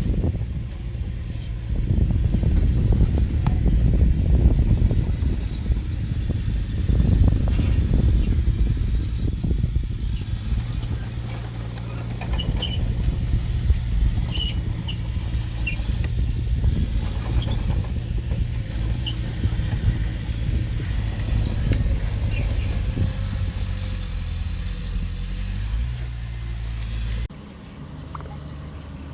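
Diesel engine of heavy earthmoving equipment running, with a low rumble that rises and falls, and a few faint high squeaks. Near the end the sound drops abruptly to a quieter engine hum.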